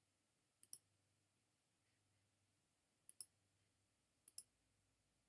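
Three faint computer mouse clicks, each a quick double tick of button press and release, spaced a second or two apart against near silence.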